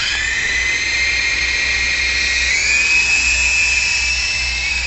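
Syma toy RC helicopter's small electric motor and rotor whining as it is throttled up to take off. The pitch rises at the start, steps up again about two and a half seconds in, and then holds high.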